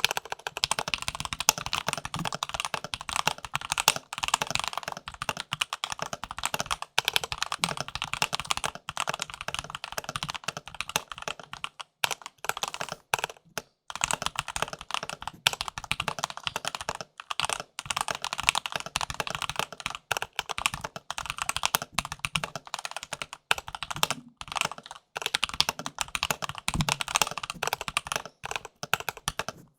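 Mechanical keyboard being typed on at a fast, steady pace: a dense run of key clicks and clacks with a few brief pauses.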